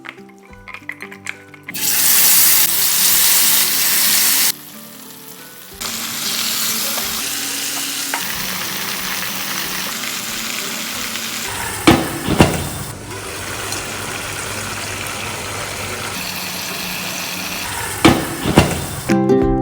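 Chicken sizzling in hot oil in a pan: a loud burst of sizzling about two seconds in, a short drop, then steady frying. A few sharp knocks sound twice, near the middle and near the end.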